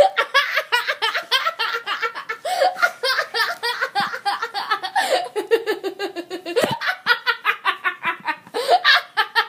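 Girls laughing hard in a continuous run of quick, high-pitched 'ha' bursts, with one lower, sliding note a little past the middle.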